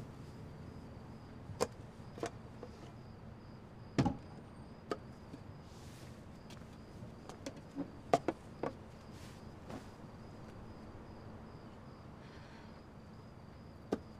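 Low room tone with a cricket chirping steadily throughout, and a scattering of small knocks and clicks from objects being picked up and handled. The loudest knocks come about four seconds in and a few around eight seconds in.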